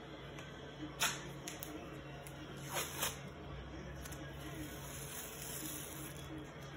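White athletic tape being pulled off the roll while an ankle is taped: three short ripping sounds, one about a second in and two close together near three seconds, over a steady low hum.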